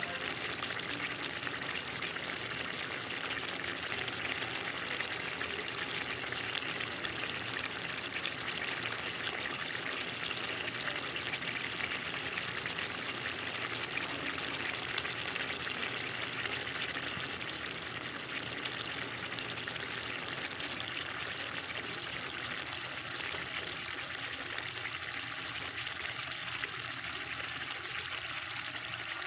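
Meat and potato stew cooking in a pot, giving a steady sizzling, bubbling hiss.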